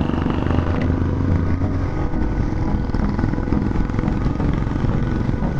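Motorcycle engine running steadily, heard from on board the moving bike while it rides along.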